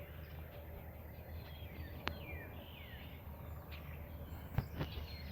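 Several songbirds chirping with short falling whistles, over a steady low rumble. Two sharp clicks, about two seconds in and near the end.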